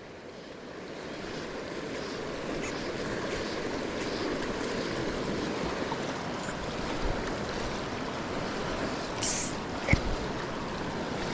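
River current rushing steadily over a riffle, with one short knock about ten seconds in.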